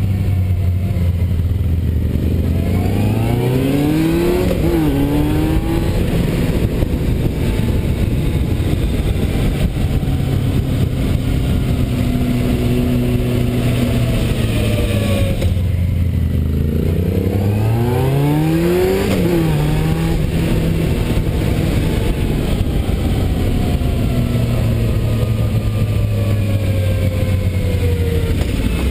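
Motorcycle engine heard from on board while riding, running steadily, then accelerating out of a bend twice: the revs climb and then drop with an upshift, about three seconds in and again about seventeen seconds in.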